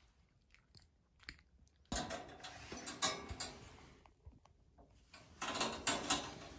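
A cat's paws in a litter box of pellet litter, the pellets crunching and scraping in two short bouts.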